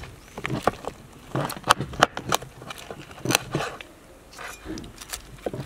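Meat cleaver chopping through tandoor-roasted chicken onto a wooden cutting board: about ten sharp, uneven chops, some in quick pairs.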